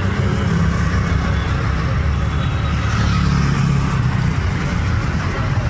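Street traffic: the engines of passing vehicles making a steady low rumble.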